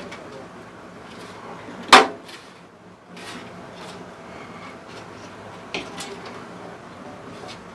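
A thin metal backplate being pressed into the PC case, with one sharp snap about two seconds in as it seats, then two lighter clicks around six seconds, over soft handling rustle.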